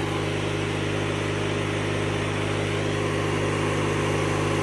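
1997 MTD Yard Machines riding lawn mower's engine idling steadily at an even pitch.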